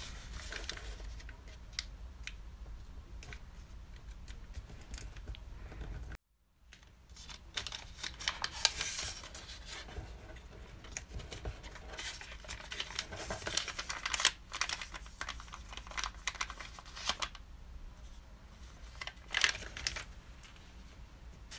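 Origami colour paper rustling and crinkling as it is folded by hand, with fingers scraping along the creases to press them flat. The sound breaks off briefly about six seconds in.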